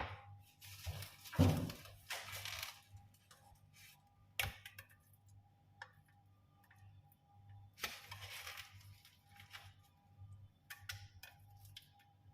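Kitchen handling noises: scattered light knocks and clicks with bursts of rustling, over a faint steady hum.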